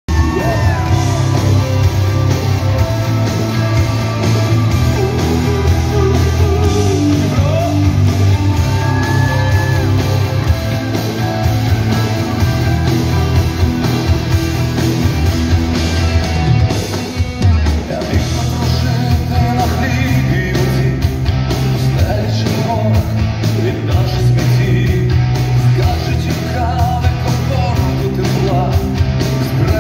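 Live pop-rock band playing loudly through a concert PA, with electric guitar, drums and a heavy bass under a male lead voice singing, recorded from the audience on a phone.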